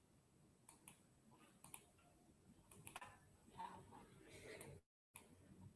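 Faint, sharp computer clicks, about six, some in close pairs, with a low rustle between them; the audio drops out completely for a moment near the end.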